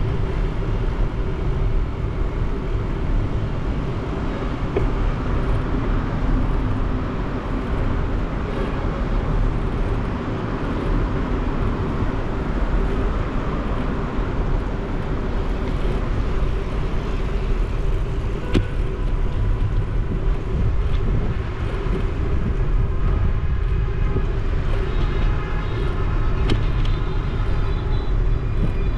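A motorcycle running steadily through city traffic, with a constant steady engine tone under road and traffic noise. Near the end a higher-pitched sound of several tones joins in.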